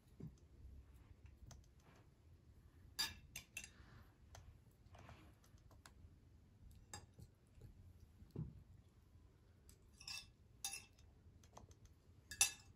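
Knives and forks clinking and scraping on plates as food is cut and eaten: scattered light clinks a second or two apart, a soft thump about eight seconds in, and the sharpest clink near the end.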